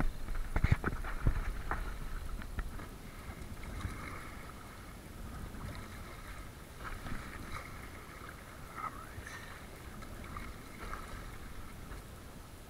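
Water splashing and gurgling against the hull of a moving kayak in choppy sea, with a few low thumps in the first couple of seconds.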